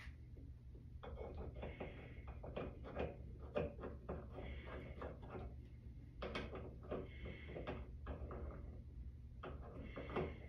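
Faint, irregular light clicks and scrapes of a small metal ring being fitted by hand into a shower valve's housing in the wall, over a low steady hum.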